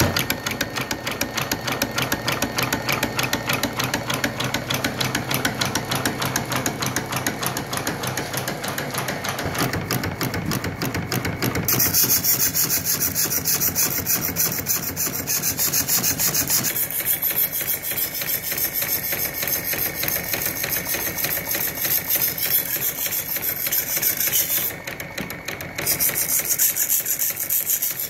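Homemade knife-sharpening machine running: an electric gear motor cranks a carriage of coarse DMT diamond plates back and forth on drawer slides, with a fast, steady rhythmic clatter. About twelve seconds in, a high scraping hiss joins it as the knife's steel edge is ground on the moving diamond plate. The hiss drops out briefly near the end.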